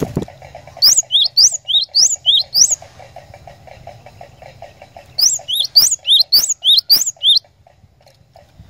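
Cinereous tit (glatik batu) singing: two bouts of its ringing song, each a quick string of repeated two-note phrases, high then lower, the second bout starting about five seconds in. A steady, fast, faint pulsing runs underneath, and there is a short thump at the very start.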